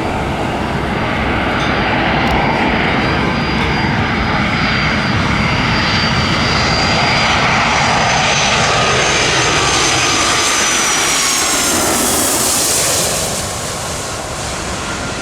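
A Boeing 757-200 jet airliner passing low overhead on landing approach: loud, steady turbofan engine noise with a high whine that glides slowly down in pitch. The noise swells to its loudest and then falls away about 13 seconds in as the jet passes.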